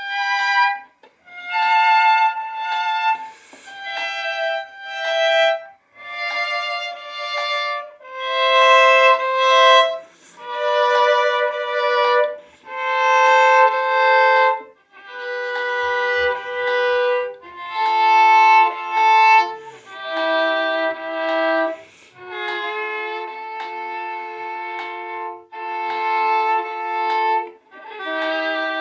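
Solo violin playing double-stopped thirds, two notes bowed together in long strokes of about two seconds each, the pairs stepping downward in pitch across the passage.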